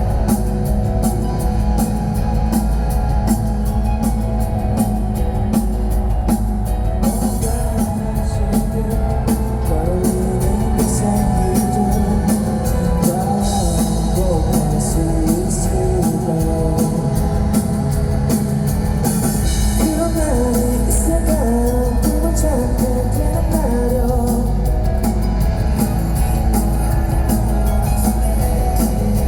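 Live rock band playing amplified, with drums, bass and guitar under a sung lead vocal; the vocal line comes in about a third of the way through.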